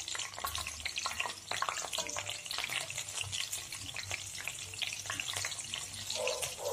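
Slit green chillies sizzling and crackling in hot oil in a stainless steel kadhai while a wire skimmer is stirred through the oil.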